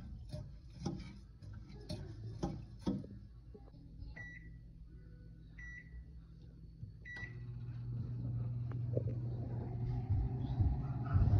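A metal spoon clinks against a glass bowl during the first three seconds. Then a microwave oven's keypad beeps three times as buttons are pressed, and about seven seconds in the microwave starts running with a steady hum.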